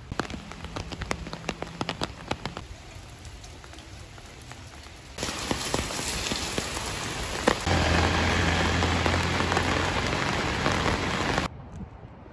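Heavy rain pouring onto a paved street, setting in suddenly about five seconds in and growing louder, with a low steady hum beneath it for the last few seconds. Before it come a couple of seconds of scattered sharp ticks. The downpour cuts off abruptly near the end.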